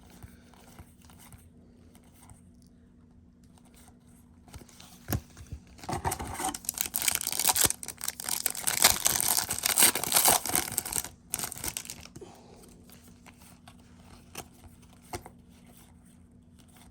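Trading-card pack wrapper crinkling and being torn open for about five seconds in the middle, with light clicks of cards being handled before and after.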